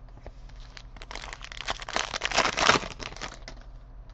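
Foil trading-card pack wrapper crinkling and crackling as it is torn open and crumpled. It starts about a second in and is loudest around two and a half seconds in.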